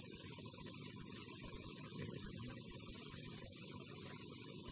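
Steady electrical hum and hiss of the microphone and sound system, with no other sound.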